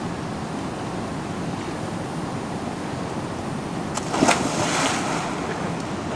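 Steady rushing of flowing river water, with a sudden louder rush of noise about four seconds in that fades over about a second.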